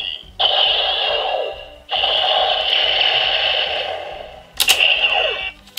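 Neo DecaDriver toy belt playing its electronic sound effects and music through its small speaker, in several stretches, some ending in a falling sweep. A sharp click about four and a half seconds in comes from the belt's buckle being worked.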